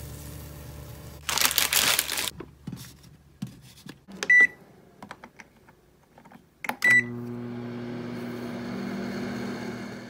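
A brief loud scraping noise about a second in, then clicks of microwave oven buttons being pressed and two short high beeps a couple of seconds apart. After the second beep the microwave starts heating, a steady hum with fan noise.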